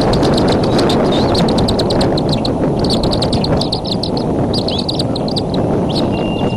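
Birds chirping in quick runs of short, high notes over a loud steady rumble of wind on the microphone.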